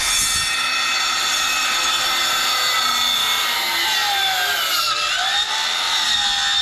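Handheld circular saw (Skilsaw) running at full speed while crosscutting an oak 8x8 post. Its steady whine drops in pitch under load about five seconds in, then recovers.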